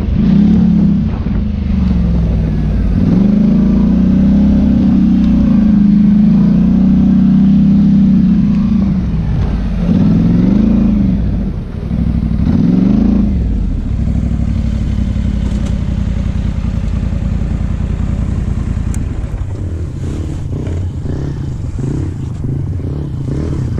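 ATV engine running under throttle, its note rising and falling as the rider works the throttle over rough ground. About 13 seconds in it drops to a lower, steadier note, and from about 19 seconds a rapid rattling and clatter joins it as the machine rolls over loose rock.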